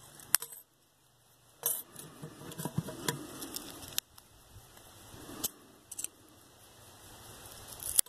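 Kitchen scissors snipping thin soda-can aluminum: a handful of sharp, scattered metallic clicks and snips, with light crinkling of the foil-thin metal between them.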